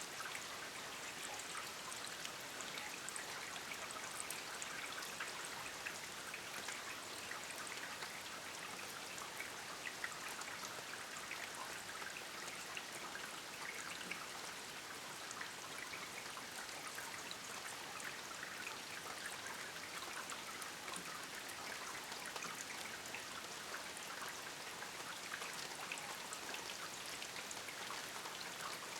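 Steady rain falling, a dense patter of many small drops ticking against surfaces over a continuous hiss.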